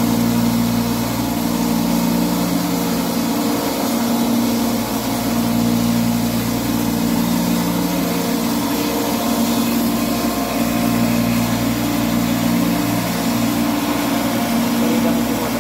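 Electric hammer mill running steadily while grinding grain into meal: a loud, constant drone with a rushing noise over it, the low hum swelling and easing slightly every few seconds.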